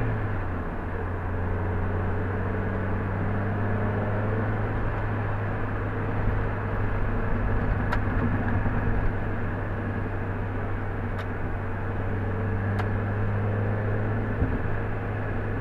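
A car driving at about 35 to 45 mph, heard from inside the cabin through the dash cam's microphone: steady engine hum and road noise, with a few faint ticks in the second half.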